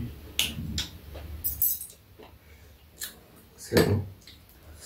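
Metal spoon and chopsticks clinking and tapping against ceramic bowls: a scattering of short separate taps, the loudest a little before the end.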